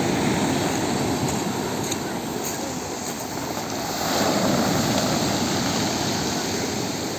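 Sea surf: waves rushing in and breaking, the roar swelling near the start and again about four seconds in.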